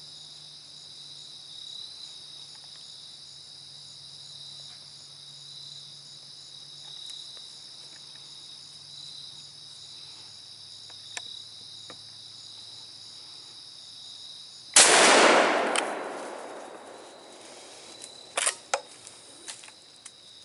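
Crickets chirping steadily, then about fifteen seconds in a single loud hunting gunshot that rolls away over a second or so. A few sharp clicks follow a few seconds later.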